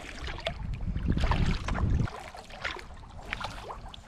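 Kayak paddle strokes: the blades dipping and pulling through the water with drips and small splashes. A low rumble about a second in cuts off sharply near the middle.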